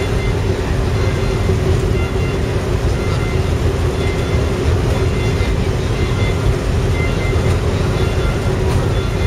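Large passenger ferry's machinery running: a steady, loud low rumble with a constant hum and no change.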